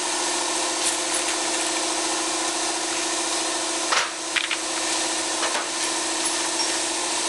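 Shop air compressor running with a steady hum, with a few short knocks about four seconds in and again a little later.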